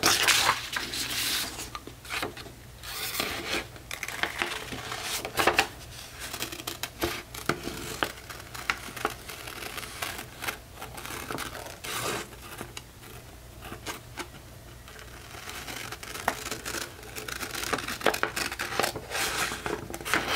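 Scissors cutting through a sheet of printed paper in a run of short, uneven snips, with the paper rustling as it is turned between cuts.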